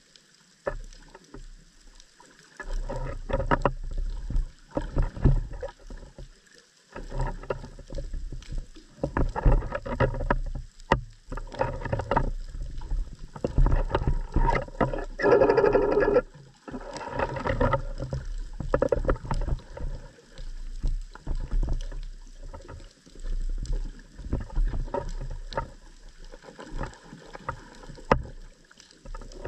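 Underwater audio picked up by a submerged camera: irregular bursts of water noise and low rumble with scattered clicks. A pitched hum rises about halfway through and fades a couple of seconds later.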